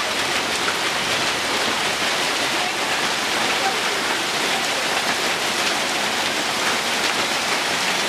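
Rain falling steadily on a grass lawn: a dense, even hiss of many drops.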